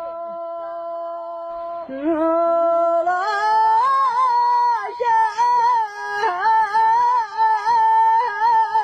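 A man singing an unaccompanied Arabic folk song: he holds one long steady note, then from about two seconds in moves into a winding, ornamented melody.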